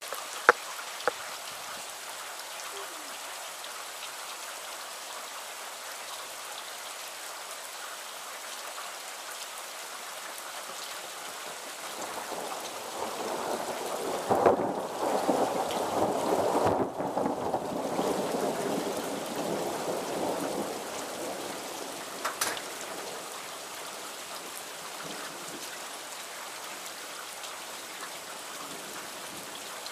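Steady rain falling, with a long roll of thunder that swells up about halfway through and dies away over several seconds. A few sharp ticks stand out, two near the start and another pair about two-thirds of the way in.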